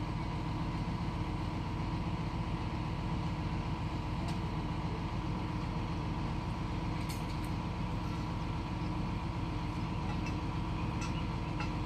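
Truck-mounted crane's engine running steadily at idle, with a few faint clinks of metal about 4, 7 and 11 seconds in.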